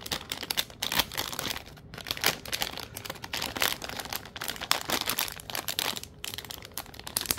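Resealable clay packets crinkling as they are handled, a run of crackly rustles with a short pause about six seconds in.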